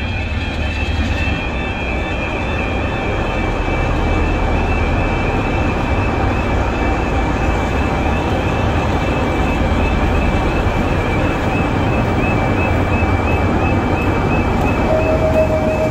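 Class 47 diesel locomotive with its Sulzer twelve-cylinder engine running as it rolls slowly over the level crossing hauling its carriages, a heavy rumble that grows louder as it comes alongside. The crossing's warning alarm sounds throughout in a steady repeating warble.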